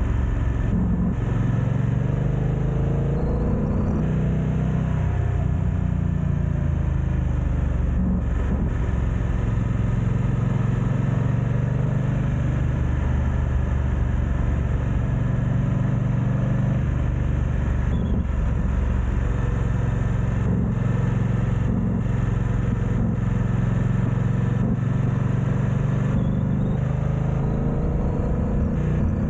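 BMW F900XR's parallel-twin engine running as the motorcycle is ridden, its pitch rising as it accelerates about two seconds in and again near the end, steady in between.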